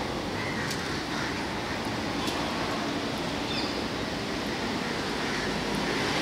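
Steady city street traffic noise, an even rumble and hiss, with a couple of faint clicks and a short high chirp about three and a half seconds in.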